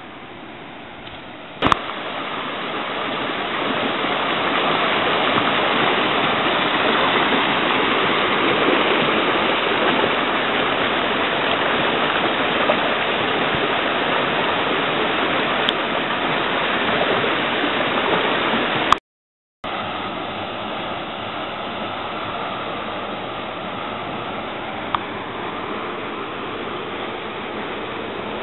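Water rushing over rocks in a stream. It is a steady, loud rush that starts with a click about two seconds in, cuts out for a moment about two-thirds of the way through, then carries on a little quieter.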